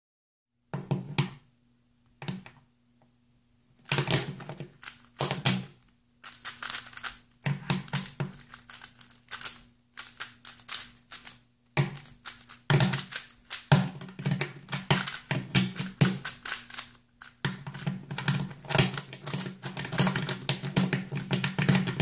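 Gans 356 S v2 plastic speedcube being turned one-handed in fast bursts of clicking layer turns, with short pauses between bursts. The first few seconds hold only a few scattered clicks before the turning becomes dense.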